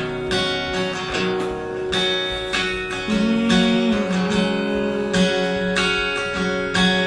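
Acoustic guitar strumming chords, with a run of low single notes moving under the strums about halfway through; no singing.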